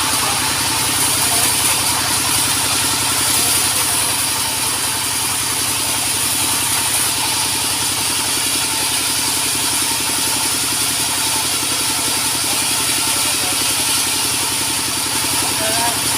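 A sawmill's engine running steadily at an even idle.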